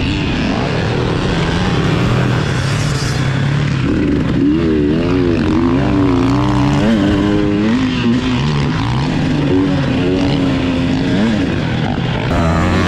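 Dirt bike engine heard from on the bike, revving up and down repeatedly as the throttle is opened and closed while riding a motocross track, with wind noise over the microphone.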